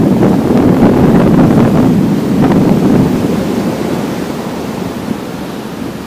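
Black Sea surf breaking and washing up a sandy beach, with wind buffeting the microphone. The rush is loud for about three seconds, then eases off.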